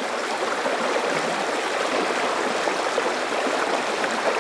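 Shallow river water rippling and rushing over a riffle, a steady even rush.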